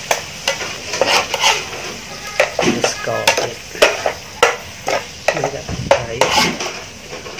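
Meat stir-frying in oil in a pan, sizzling, while a spatula stirs and turns it, scraping and knocking against the pan about twice a second.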